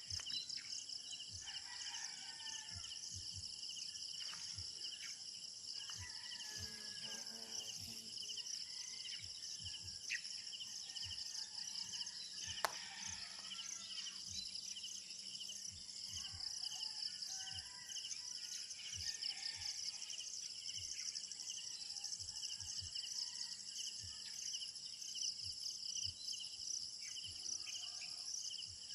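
Rural insect chorus: a steady, fast-pulsing high trill of crickets or cicadas, with birds calling here and there underneath. A single sharp click sounds near the middle.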